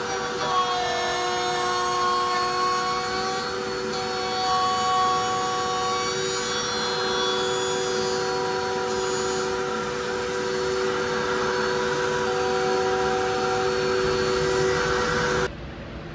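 Table-mounted router running a bearing-guided bit through the edge of an MDF box, with a vacuum hose drawing dust at the bit: a steady motor whine with several held tones over a rushing hiss. It cuts off abruptly near the end.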